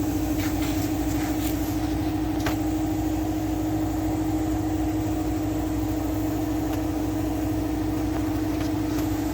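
Steady mechanical hum from shop machinery, unchanging throughout, with a few light clicks in the first few seconds.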